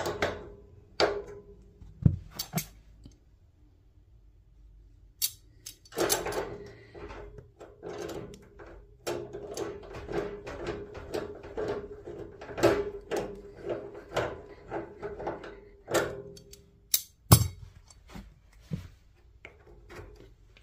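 Metal hand tools clicking, scraping and knocking against a chrome lockshield radiator valve as its spindle is gripped and turned with pliers. There is a busy run of handling clicks in the middle, and a few sharper clicks near the end as the plastic cap goes back on.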